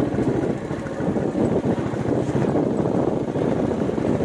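Royal Enfield Bullet 350's single-cylinder engine running steadily at low revs, its exhaust beats coming fast and even.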